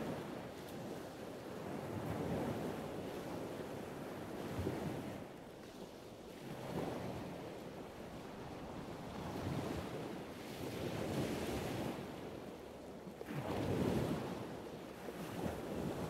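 Small ocean waves breaking and washing onto a sandy beach, the surf swelling and fading every few seconds, with wind buffeting the microphone.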